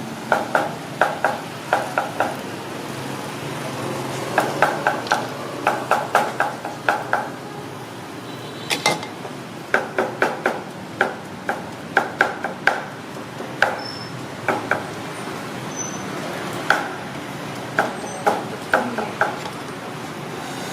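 A metal utensil striking a wok or pan in quick runs of ringing clangs, four to six strokes at a time, repeated throughout, over a steady background hum.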